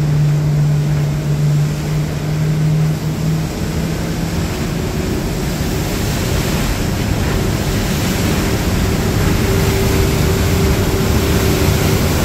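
Pilot boat running at speed alongside a cruise ship, its engines a steady hum over the loud, steady rush of bow wave and wake water. One hum fades out about four seconds in and a higher one holds from about five seconds on.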